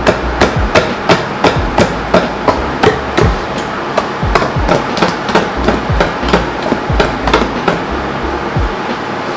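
A utensil beating cake batter in a mixing bowl, knocking against the bowl about three times a second in an even rhythm.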